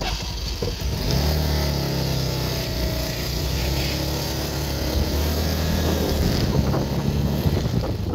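Motorcycle engine running at a fairly steady pitch while riding, with wind noise on the microphone. The engine tone settles in about a second in.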